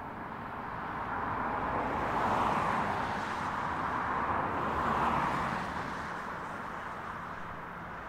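Antonov An-124's four D-18T turbofan engines in reverse thrust on the landing roll: a steady rushing jet noise with a low rumble beneath. It swells over the first couple of seconds, holds, and then eases off about two-thirds of the way through as the thrust comes back.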